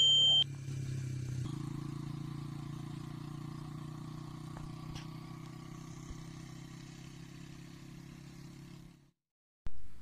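A short bright chime from the subscribe-button animation at the very start, then a steady low engine hum that fades gradually and drops out near the end.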